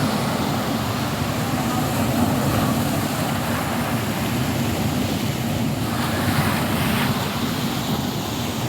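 Steady rush of sea surf and wind along a rocky shore, an even noise with no separate events.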